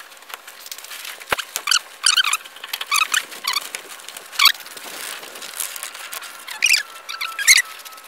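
Irregular short, high-pitched squeaks as tent pole and tent fabric rub against each other while they are pulled taut and fitted into place on a truck bed tent, with a light knock about a second in.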